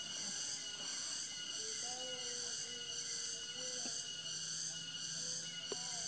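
High-pitched insect chorus, a shrill hiss with a steady whine in it, swelling and fading about twice a second, with a few faint lower calls in the middle.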